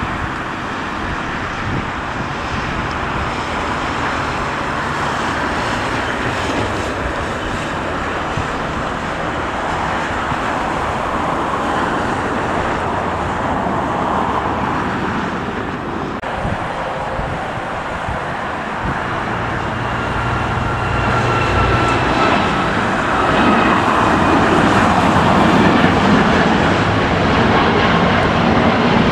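Jet airliner engines at an airport: a steady rush of jet noise that grows louder over the last several seconds, with a faint thin whine a little past the middle.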